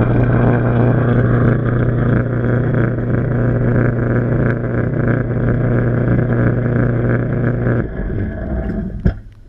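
Washing machine running, heard from inside the drum through a waterproof camera housing: a steady low motor hum over churning, sloshing water. The hum stops about eight seconds in, the churning dies away, and a single sharp click follows.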